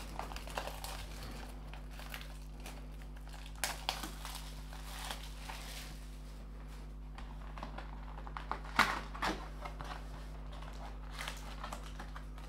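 Plastic shrink wrap crinkling as it is peeled off a cardboard box of trading cards, then rustling and light clicks as the box is opened and the foil card packs are handled. The sound comes and goes, with sharper crackles about four and nine seconds in.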